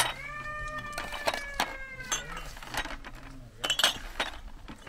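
A goat kid bleats once, a long high call of about two seconds. Tea glasses clink against each other and the tray, the loudest clinks coming near the end.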